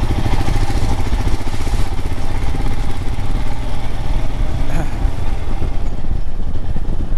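Royal Enfield Himalayan's single-cylinder engine running steadily under way, its firing pulses heard over a heavy low rumble of wind on the microphone.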